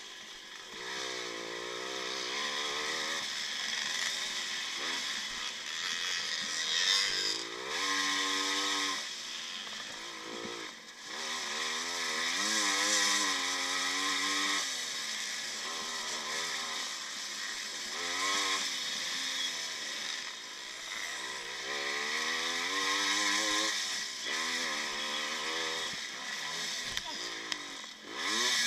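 1955 Maico two-stroke single-cylinder motocross engine being ridden hard, its pitch repeatedly climbing as it revs out and dropping on each shift or throttle-off, with a short lull about ten seconds in.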